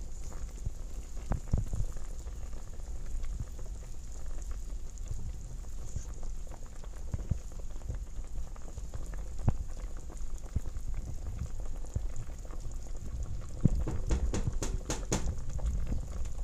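Chicken and okra stew boiling hard in an enamel pot, bubbling and popping, as a spatula turns the chicken pieces in it. A burst of sharper clicks comes near the end.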